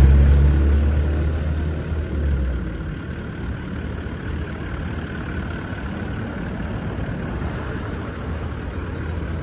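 A heavy vehicle engine, loud at first and easing off over the first two or three seconds, then settling into a steady low rumble.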